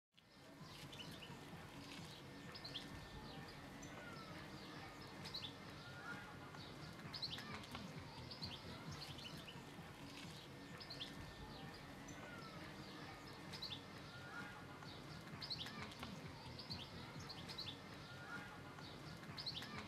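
Faint outdoor birdsong: many short, repeated chirps from small birds over a steady low background noise.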